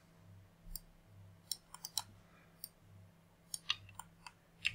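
Faint, irregular clicks of a computer mouse and keyboard while text is selected and edited, about ten sharp ticks in all, over a faint low hum.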